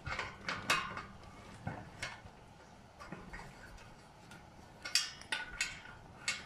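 Irregular metallic clicks and taps of a hand tool working an Allen-head bolt on a steel cot leg as it is tightened.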